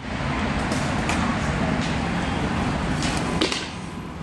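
Inline skate wheels rolling over a concrete path: a steady gritty rumble, with a few sharp scrapes from skating strides.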